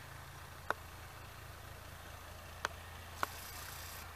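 Distant narrow-gauge ZDM4A diesel locomotive engine running, a faint steady low hum. Three short sharp clicks cut through it, the last two about half a second apart near the end.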